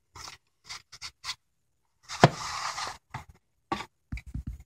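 Handling of a VHS tape box and cassette: plastic and cardboard rubbing and scraping in short strokes, with a longer scrape and one sharp click about two seconds in, then a few soft knocks near the end.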